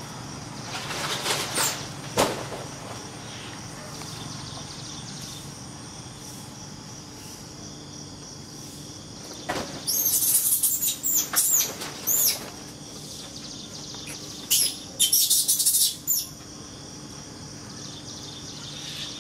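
Steady outdoor insect hum, with several loud bursts of very high, sharp chirps or squeaks about halfway through and again a little later.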